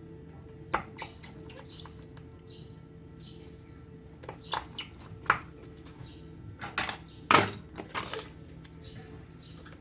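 Scattered small clicks and taps of tools and parts being handled during an iPhone 7 screen repair, the loudest about seven seconds in, over a faint steady hum.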